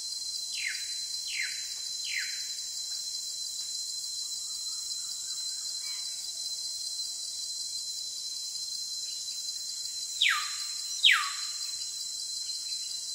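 Outdoor wildlife ambience: a steady high insect hiss with bird calls. Three quick falling whistles come near the start, and two louder falling whistles come about ten and eleven seconds in.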